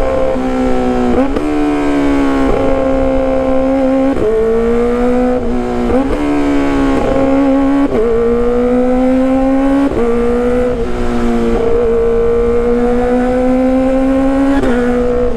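Kawasaki ZX-25RR's 250 cc inline-four running at high revs through a loud exhaust while riding. The pitch climbs slowly and drops sharply at each gear change, several times over.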